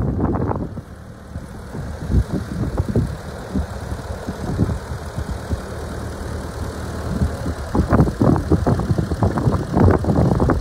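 1940 Ford 9N tractor's four-cylinder flathead petrol engine running, growing louder about eight seconds in.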